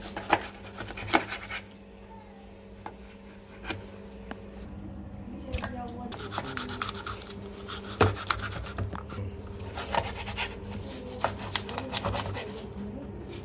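Knife slicing through raw chicken breast on a wooden cutting board: the blade rubbing through the meat, with scattered sharp knocks as it hits the board. A steady low hum runs underneath.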